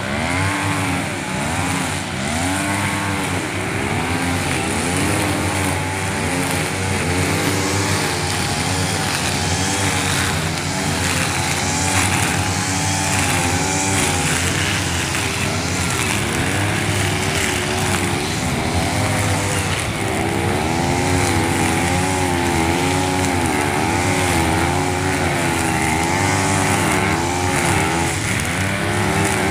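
Two-stroke petrol brush cutters with nylon trimmer line cutting grass. The engines' pitch rises and falls over and over as the operators rev up and ease off with each sweep. One machine is close and others run further off.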